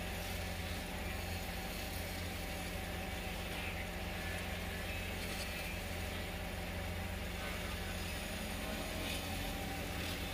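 Wood-turning lathe running steadily with a low, even hum.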